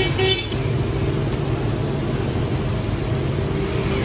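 Steady low hum of engine traffic on the street, with two short high beeps at the very start.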